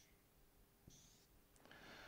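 Near silence, with one short, faint whiteboard-marker stroke squeaking across the board about a second in, and a faint intake of breath near the end.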